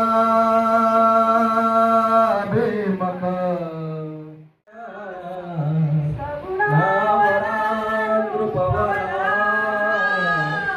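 A solo voice singing a slow, chant-like melody: a long held note, then notes sliding downward, a brief break about four and a half seconds in, then more drawn-out singing with wavering, ornamented notes.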